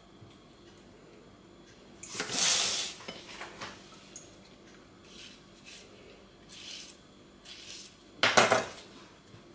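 Kitchen clatter of a knife against cookware while pear slices are cut and laid onto cake batter in a metal baking tin: one louder clatter about two seconds in and another near the end, with softer short scrapes and clinks between.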